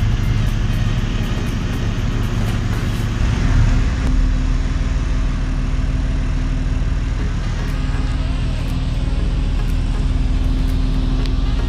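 Passenger ferry under way, its engines running with a steady low drone over an even rushing hiss of water.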